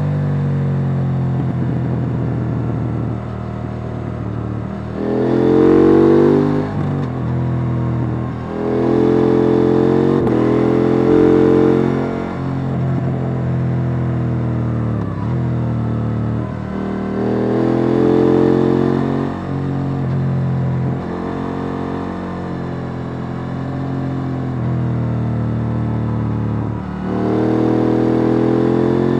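KTM 890 Duke R's 889 cc parallel-twin engine with its stock exhaust, heard from on board, pulling hard and easing off again and again through gear changes. It is loudest on the pulls about six seconds in, around ten seconds, around eighteen seconds and near the end.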